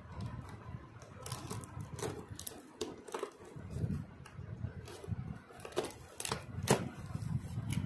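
Cardboard parts box being handled and opened by hand: scattered scrapes and sharp clicks of cardboard, with a cluster of louder cracks about six seconds in.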